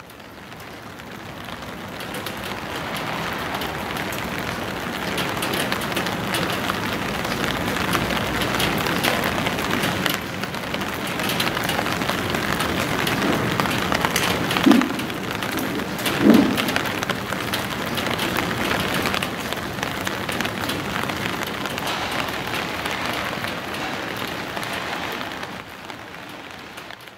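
Steady rain falling on a wet street, fading in at the start and out near the end. Two short low tones sound about halfway through.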